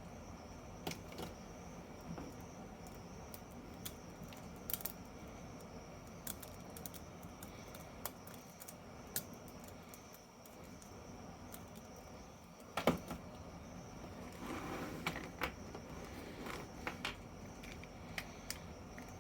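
Scattered small clicks and taps over faint room hiss, typical of handling small objects. There is a sharper knock about thirteen seconds in and a stretch of light rustling just after it.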